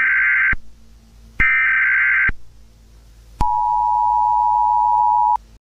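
Emergency Alert System-style alert tones. Two harsh, buzzy data bursts of about a second each come first. About three seconds in, a steady two-tone attention signal follows and holds for about two seconds, then cuts off suddenly.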